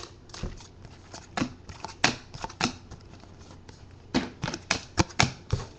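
Trading cards handled by hand: light clicks and slaps of card against card as they are flipped and shuffled through, scattered at first, then a quick run of them about four seconds in.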